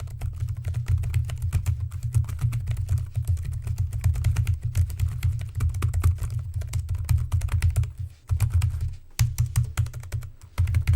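Fast typing on a compact foldable wireless keyboard's low-travel chiclet keys: a rapid run of key clicks with a dull low thud under the strokes. It slows to scattered clicks about eight seconds in, then picks up again near the end.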